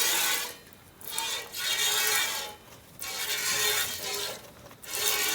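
Milk squirting into a pail in rhythmic strokes, about one a second, each a short hissing spurt.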